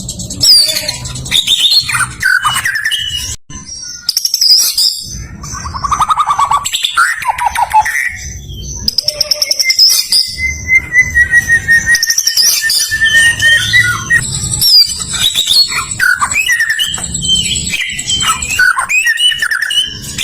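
White-rumped shama (murai batu) singing a continuous, varied song of quick whistled phrases and chatter. About halfway through, it holds one long whistle that falls slightly in pitch.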